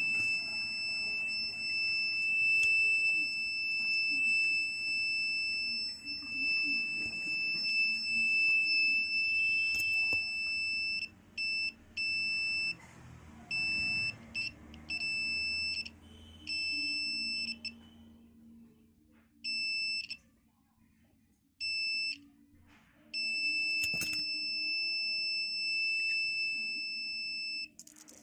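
Homemade infrared obstacle-sensor security alarm's buzzer sounding one steady high tone. It holds continuously for about eleven seconds, then cuts in and out in irregular short spells, with one last longer spell near the end: the alarm triggering whenever something is in front of the sensor.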